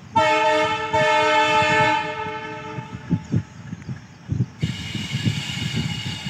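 WDM-3A diesel locomotive's horn sounding two blasts, a short one and then a longer one about a second in, fading out by about three seconds. Then the rumble of the twin diesel locomotives approaching, getting brighter and louder near the end.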